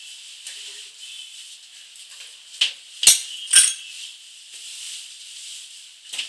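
A few sharp clicks or knocks, three in quick succession about half a second apart around the middle and one more near the end, over a steady high hiss.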